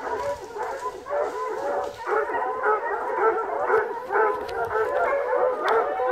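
A pack of hunting hounds baying and howling together, many voices overlapping without a break: the cry of dogs holding a wild boar at bay.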